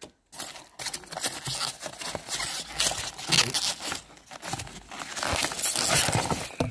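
Polystyrene packing peanuts rustling and scraping as a hand rummages through them in a cardboard box, a busy run of crackles that starts just after the beginning.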